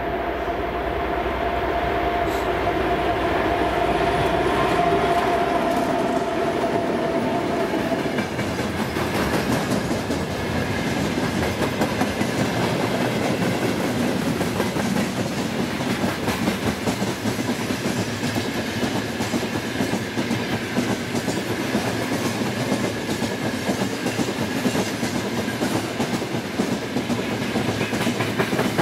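2TE116U diesel locomotive passing with a steady engine hum for the first several seconds. Then its long freight train of gondola wagons and tank cars rolls by, the wheels clattering over the rails in a dense, continuous clickety-clack.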